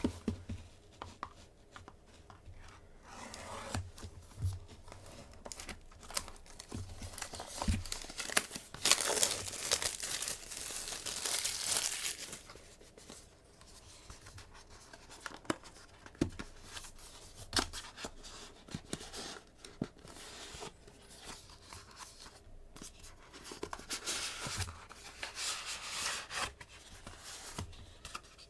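Packaging being torn and crinkled open as a trading card box is unpacked by hand, with scattered clicks and taps of handling. The loudest tearing is a stretch of several seconds near the middle, with another shorter bout near the end.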